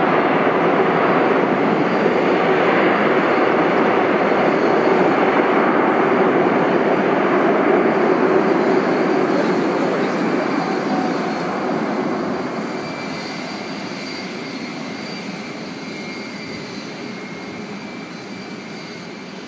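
Airliner engines running loud and steady, then fading away gradually over the second half as the aircraft moves off, leaving a faint whine.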